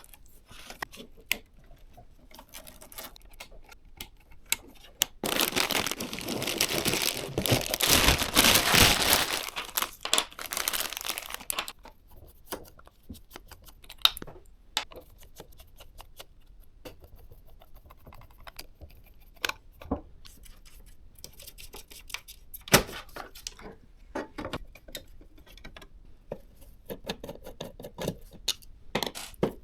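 Hands unpacking and fitting PC parts: from about five seconds in, some seven seconds of loud crinkling and tearing of packaging, then scattered light clicks and knocks of parts being handled.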